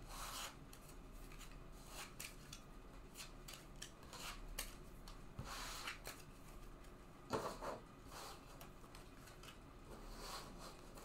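Trading cards slid across and picked up off a tabletop: faint, scattered swishes and light taps, the loudest about seven seconds in.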